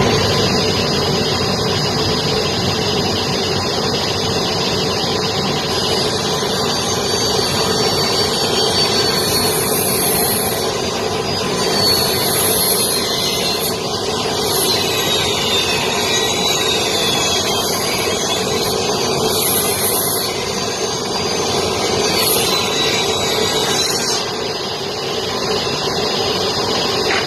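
Industrial table saw running with a steady high whine over a machine drone. The whine sags in pitch and recovers as boards are fed through the blade, with several short hissing bursts of cutting through the middle.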